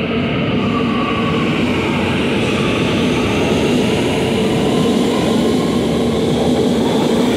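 Medellín Metro electric train running past alongside the platform: a steady rolling rumble of wheels on rail with a steady motor hum, growing slightly louder.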